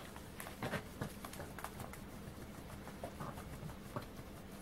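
Shih Tzu puppies play-wrestling on carpet: scattered soft scuffles, scratches and taps of paws and bodies, a louder flurry just under a second in, over a faint steady hum.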